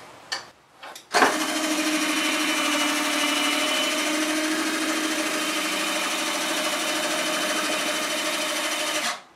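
A linear actuator running steadily: a motor whine with a few held tones as it pushes the pantograph's stylus arm along at an even speed. It starts about a second in, after a few light clicks, and cuts off just before the end.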